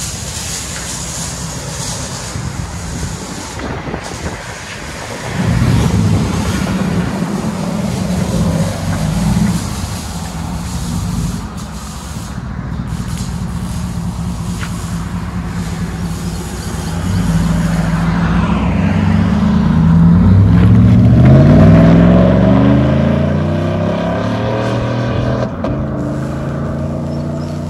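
2014 Chevy Silverado's 5.3-litre V8 running through straight-piped dual exhaust. It gets louder about five seconds in as the truck pulls off, then accelerates with a rising note about twenty seconds in, the loudest part, before easing off as it drives away.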